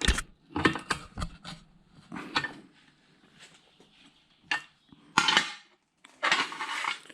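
Wrench working brass connectors loose on a cast-aluminium RF amplifier housing: scattered metal clicks and knocks, then two short scraping rasps near the end.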